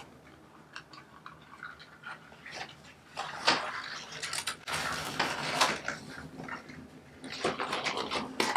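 Handling noise: a rubber drysuit wrist seal and the sleeve around it rubbing and scraping against plastic rings as the seal is worked into place, in short irregular scrapes from about three seconds in.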